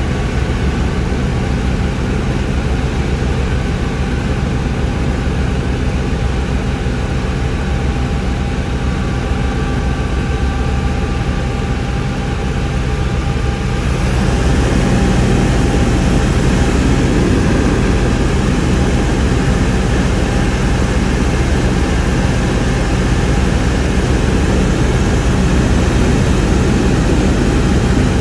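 Cabin noise of a Bell 430 twin-turbine helicopter in flight: a steady drone of rotor and engines with a few steady whining tones over it. From about halfway through it gets a little louder, with more rushing noise.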